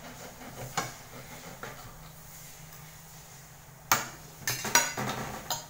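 Kitchenware clattering: a couple of single knocks, then about three seconds in a quick run of clinks and clatters lasting under two seconds, over a steady low hum.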